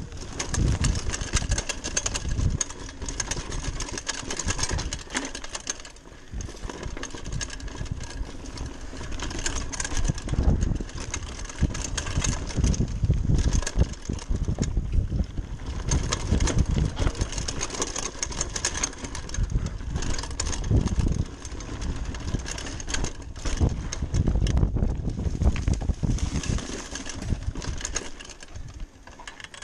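Giant Talon 3 29er hardtail mountain bike ride down a dirt forest singletrack. Wind rumbles on the microphone in uneven surges, while the tyres crunch over the dirt and the bike's frame and parts rattle and knock over bumps.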